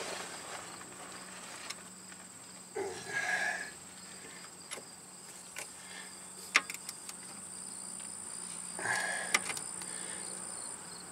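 Sparse metal clicks and clinks of hand tools working a steering rack mount under a car, with two short louder noises about 3 and 9 seconds in. A steady high-pitched insect trill runs underneath.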